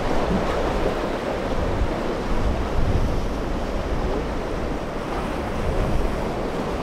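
Rough surf breaking and wind gusting on the microphone: a steady rush of water with uneven low rumbles from the wind.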